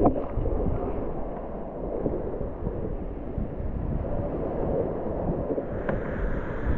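Wind buffeting the microphone over rushing, splashing water, with a sharp knock at the start.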